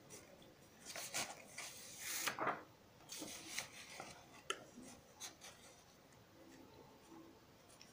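Faint rustling and sliding of a paper sheet as a printed schematic is swapped for another: a few soft swishes in the first few seconds, then a couple of light taps.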